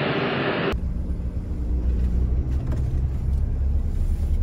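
A loud, steady rush of airfield noise cuts off abruptly less than a second in. It gives way to the low, steady engine rumble and hum of a road vehicle, heard from inside its cab.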